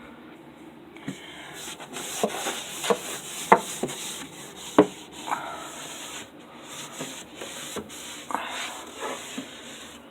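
Hand scrubbing and wiping inside a kitchen cupboard, a rough rubbing noise broken by several sharp knocks against the cupboard, the loudest about three and a half and five seconds in.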